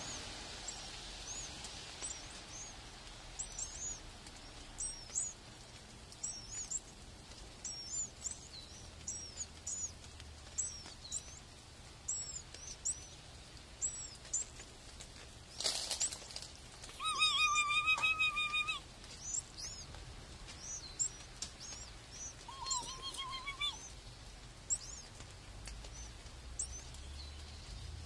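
Small songbird calling with a run of short, high chirps, about one or two a second, near an active nest of nestlings. A little past halfway there is a brief burst of noise, then a longer, steady whistled note, with a shorter one a few seconds later and a few scattered chirps after that.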